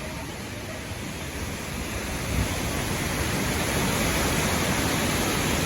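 Strong storm wind rushing, a steady noise that grows louder about two seconds in.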